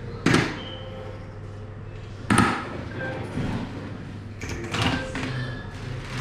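Soft-tip darts striking an electronic dartboard: two sharp hits about two seconds apart, the first just after the start.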